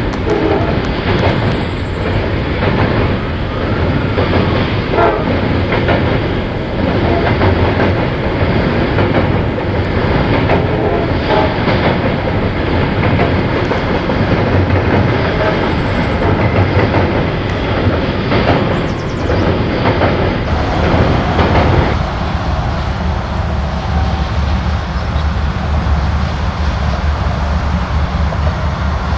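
A train passing close by, its steel wheels clattering over the rail joints in a dense, steady racket. About two-thirds of the way through the clatter falls away, leaving a low rumble.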